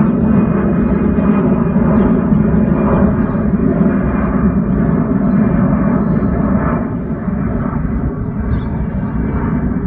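Airbus A319-114 airliner's jet engines climbing past overhead: a steady low rumble that eases a little after about seven seconds as the plane draws away.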